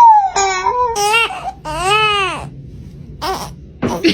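A baby crying in a series of wails: a long falling wail at the start, short cries about a second in, then a long rise-and-fall wail about two seconds in and a brief cry near the end.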